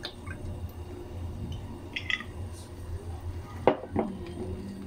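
Ketchup squeezed from a bottle into a frying pan of tomato and egg with a few soft squelches, then a sharp knock of a wooden spatula against the pan about three and a half seconds in as stirring starts, over a steady low hum.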